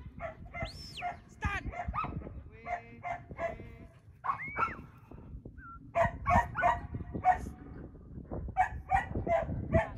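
Shepherd's whistle commands to a working border collie: a few clean whistled notes that rise, hold and fall, one about a second in and a lower one near the middle, among many short, quick pitched calls.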